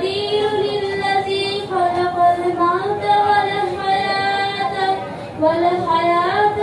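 A girl reciting the Quran in a melodic chant (tilawat). She holds long sustained notes and slides smoothly between pitches.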